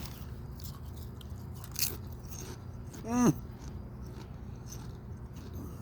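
Someone chewing a mouthful of crunchy potato chips, with faint crunches. About three seconds in there is a brief falling voiced sound from the eater.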